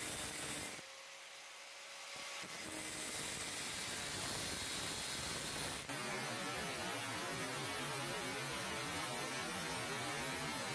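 Angle grinder with a thin cut-off disc cutting through a hardened steel circular saw blade: a steady grinding whine and hiss that changes character abruptly about six seconds in.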